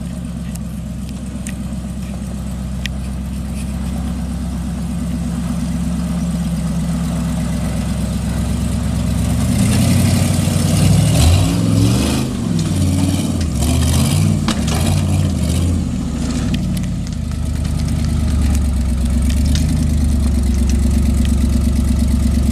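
Off-road buggy's engine running at a steady low idle, then revving up and down from about ten seconds in as it climbs a rocky waterfall ledge, with scraping and crackling noises for several seconds; it settles into a steady, higher run near the end.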